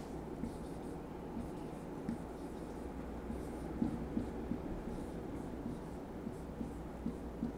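Whiteboard marker squeaking and scratching in short strokes as words are written on the board, over a steady low hum.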